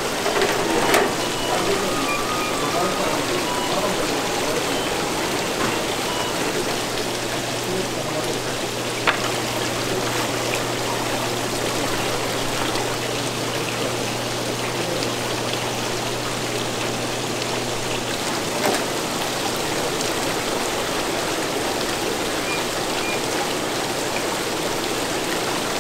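Steady splashing and bubbling of water circulating in live seafood tanks, with a low hum that stops about two-thirds of the way through and a few sharp knocks.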